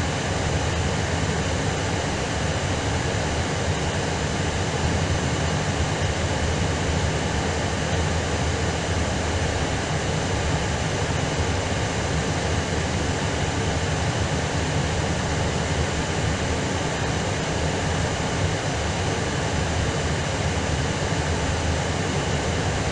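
Steady roar of an Airbus A320's engines heard from inside the cabin, even and unbroken.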